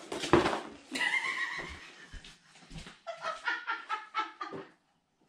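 A person laughing: a loud burst of breath, then a high, drawn-out laugh, then a quick run of short 'ha' pulses near the end.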